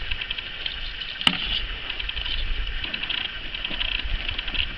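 Steady high trilling of insects, a fast rattling buzz, over a low rumble, with a single sharp click about a second in.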